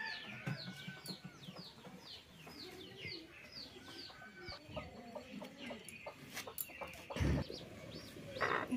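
Birds chirping in a quick run of short, high, falling notes, about two or three a second. The notes pause midway and come back near the end, over a hen's low clucking. A dull thud comes about seven seconds in.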